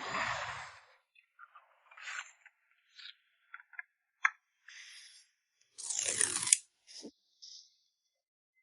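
Packing materials crinkling and scraping as photocards are wrapped by hand: a string of short irregular crinkles and rustles, the loudest about six seconds in.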